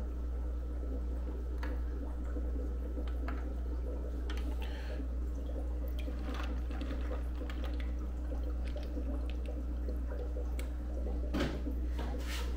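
Aquarium water dripping and lightly splashing as a hand lets mystery snails go into a tank, with a few soft plops and ticks scattered through. Under it runs a steady low hum, with a slightly louder splash near the end.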